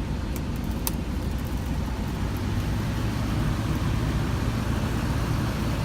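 Steady hum and rush of air in an idling semi truck's cab, with a small electric fan running on top of a homemade ice-cooler air conditioner. There are a couple of light clicks in the first second, and a low hum grows a little stronger about two seconds in.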